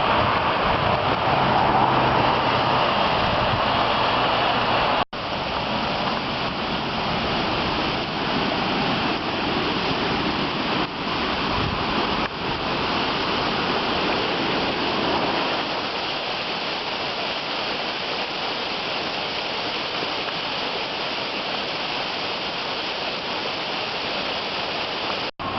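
Steady road and tyre noise inside a moving car, an even hiss, with a brief dropout about five seconds in.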